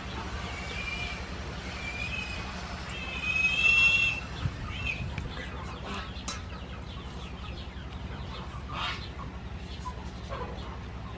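Hens clucking in short pitched calls, the longest and loudest about three to four seconds in. Short scraping strokes of a hand peeler take strips off a green papaya, mostly in the second half.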